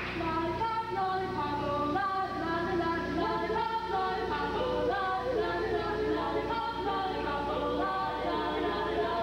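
Show choir singing a pop medley in close harmony, several voices moving together in short, quick notes, with a steady low hum underneath.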